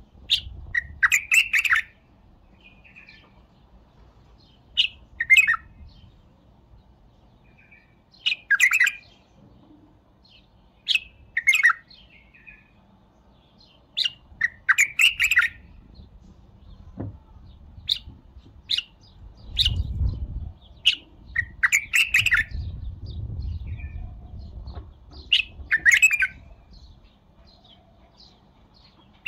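White-eared bulbul singing: short, loud warbled phrases, about nine in all, repeated every three to four seconds with pauses between. A low rumble sits under the song for a few seconds about two-thirds of the way through.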